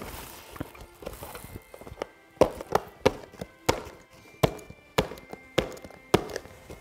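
Small cardboard gift box being handled and worked open by hand: a run of sharp clicks and knocks, irregular at about one to two a second, starting about two seconds in.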